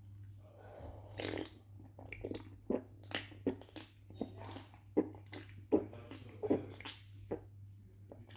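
A person gulping and swallowing a drink in a quick run of short wet gulps, about two to three a second, starting about a second in. A steady low electrical hum sits underneath.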